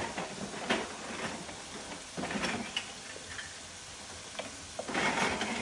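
Dry jumbo pasta shells rattling in their cardboard box and clicking as they are taken out and dropped into a pot of water, a few irregular light clicks and rustles.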